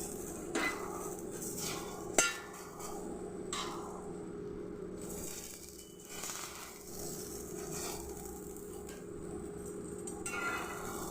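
Kitchen utensils knocking and clinking over a steady hum, with a sharp knock about two seconds in.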